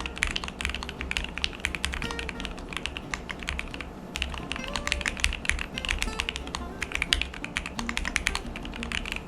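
Typing on a Keychron Q8 Alice-layout aluminium mechanical keyboard with hand-lubed Gateron CJ switches: a rapid, continuous stream of keystrokes on the regular keys, the rounded "raindrop" sound of a board already modded by its previous owner.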